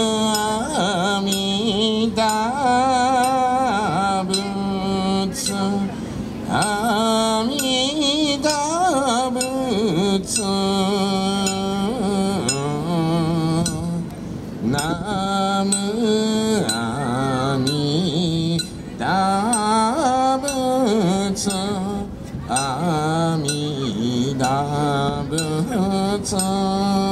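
Solo voice singing a slow, solemn Japanese folk song in long held, wavering notes, phrase by phrase with short breaks between.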